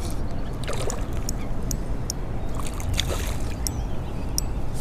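Flowing river water over a steady low rumble, with a few brief splashy bursts and scattered sharp clicks.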